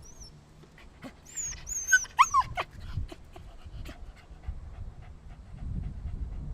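A fussy dog whining and yipping: a short cluster of high, sliding cries about one to two and a half seconds in, among scattered clicks, with a low rumble near the end.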